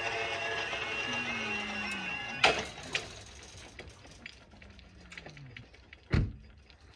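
Level crossing yodel alarm warbling as the barriers lower. It stops about two and a half seconds in with a sharp clunk as the barriers come down. Quieter after that, with a short falling hum and a loud low thump near the end.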